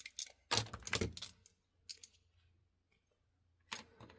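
Sharp metallic clicks and clatters from a padlock and lock picks being worked and handled, in a few short clusters with quiet gaps between them.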